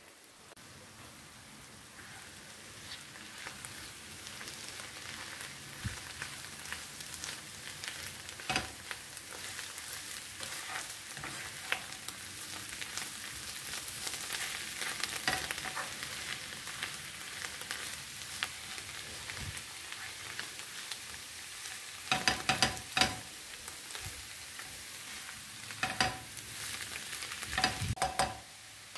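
Food sizzling as it fries in a hot pan, the sizzle growing louder over the first few seconds. A stirring utensil knocks against the pan now and then, several times in quick succession near the end.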